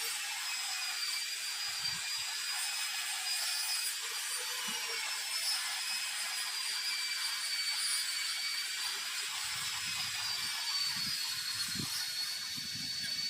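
Steady rasping of a tool cutting or scraping during plumbing work, with a few low knocks near the end.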